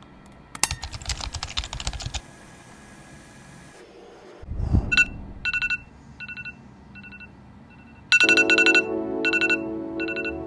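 A brief clattering rustle in the first two seconds, then an iPhone X alarm ringing from about five seconds in: short electronic beeps in quick repeating groups. Music with a sustained chord comes in under the alarm about eight seconds in.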